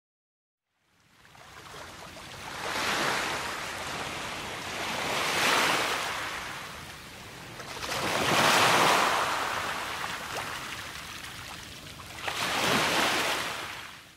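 Sea waves breaking on a beach: four swells of surf a few seconds apart, fading in about a second in and fading out at the end.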